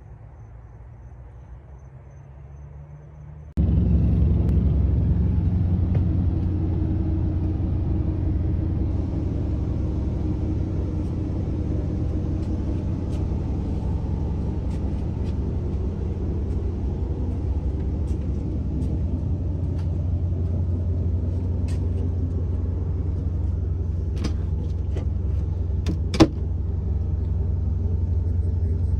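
A steady low mechanical rumble that starts abruptly a few seconds in, with a few sharp clicks near the end.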